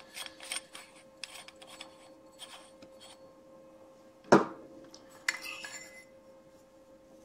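Metal casing of a t.bone SC440 condenser microphone being taken apart by hand: light metallic clicks and scrapes, a single loud knock about four seconds in, then a brief scrape as the tubular body slides off the inner circuit-board chassis.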